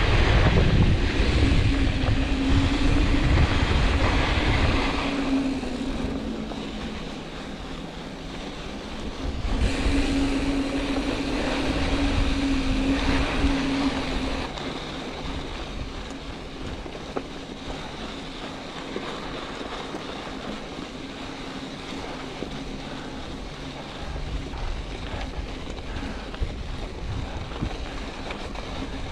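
Wind buffeting the microphone and knobby tyres rolling over dirt and gravel as a mountain bike rides a desert trail, with a steady hum underneath. It is loudest over the first five seconds and again from about 10 to 14 seconds, and quieter and even in between and after.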